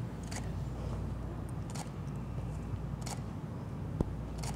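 Canon EOS R6 camera shutter firing a series of single frames, a short click about every second and a half, over a steady low hum.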